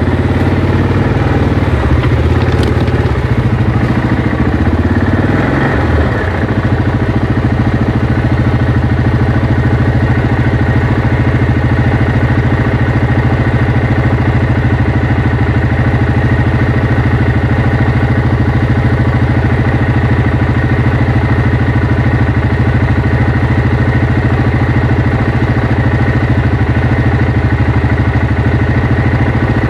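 Yamaha Kodiak 700 ATV's single-cylinder four-stroke engine idling steadily, the quad standing still.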